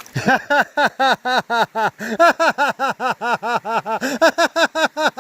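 A person laughing hard in a long, even run of short 'ha' notes, about five a second.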